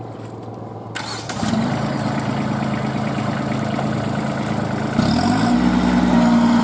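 Kubota B2441 compact tractor's diesel engine straining to drive the tractor out of deep mud. It gets louder about a second in and revs up about five seconds in, its pitch rising and then holding steady.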